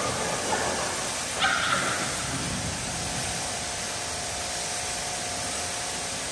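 Pressure washer spraying water over a car's body: a steady hiss.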